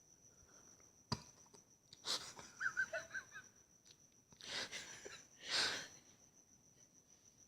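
A sleeping dog dreaming: a quick run of small whimpering squeaks amid wheezy breathing, then two loud huffing breaths. There is a sharp click about a second in.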